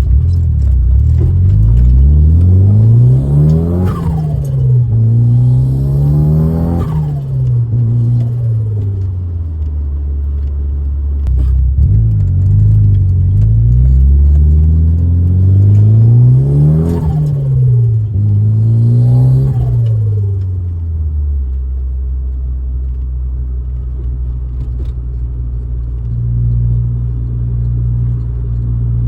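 Mitsubishi Lancer GSR's turbocharged 1.8-litre 4G93T four-cylinder accelerating hard through the gears twice, the revs climbing and dropping sharply at each shift, with turbo flutter as the throttle is lifted. From about three quarters of the way through, it settles to a steady low engine drone.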